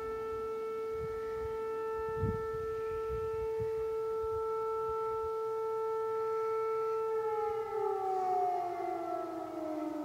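Air-raid siren sounding a long, steady tone, which begins to fall in pitch about seven and a half seconds in.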